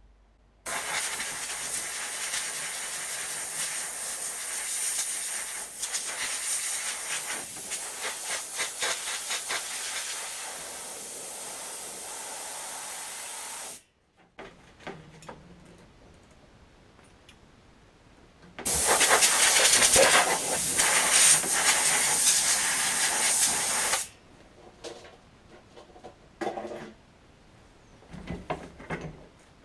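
Compressed-air blow gun on a coiled air hose blowing a hissing jet of air in two long blasts: one of about thirteen seconds starting a second in, then a louder one of about five seconds. Small clicks and knocks come between the blasts and after.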